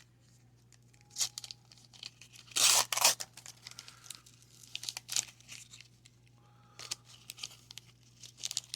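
Wax-paper wrapper of a 1990 Donruss baseball card wax pack being torn and crinkled, in several short bursts, the loudest a little under three seconds in.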